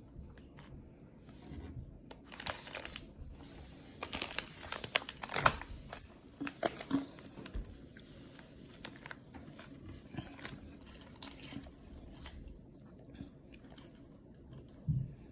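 Snack packaging crinkling and tearing open in bursts of crackles, busiest in the middle of the stretch, with a low thump near the end.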